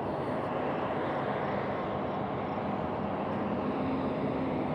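Steady, even outdoor background hum of distant traffic, with no distinct events.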